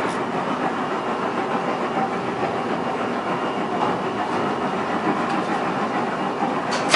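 Old freight elevator car travelling up its brick shaft, with a steady rattling rumble, and a clank near the end as it arrives at the landing.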